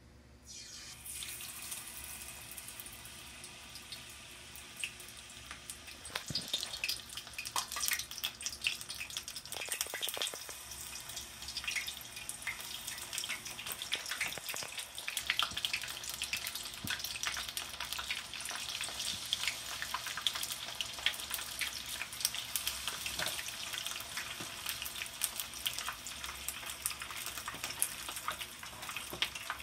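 Battered potato wedges deep-frying in hot oil in a skillet, a dense sizzle and crackle. It starts suddenly about a second in as the first wedge goes in and grows louder as more wedges are added.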